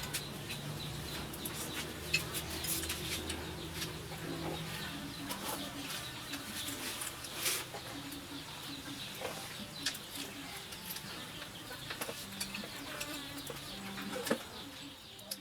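Rural outdoor ambience: chickens clucking on and off and insects buzzing, with scattered light clicks throughout.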